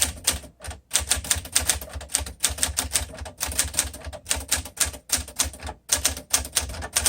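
1952 Smith Corona Sterling manual typewriter being typed on at a steady pace: a run of sharp key strikes, about four a second, with a few short breaks.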